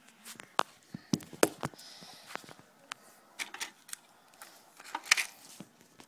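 Handling noise: scattered light clicks, taps and rustles as the camera is set down on the floor and small plastic toy pieces are moved about, with a short rustle about five seconds in.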